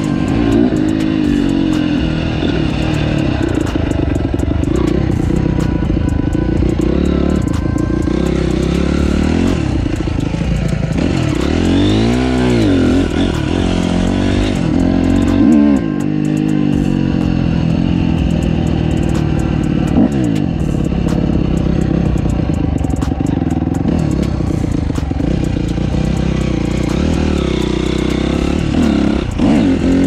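Dirt bike engine being ridden hard, its pitch rising and falling over and over with throttle and gear changes, dropping low and climbing back about twelve seconds in.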